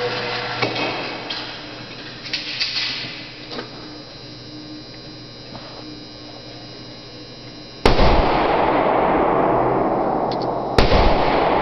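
Two gunshots at an indoor range, about three seconds apart near the end. Each is a sharp crack followed by loud sustained noise. Faint handling clicks come before them.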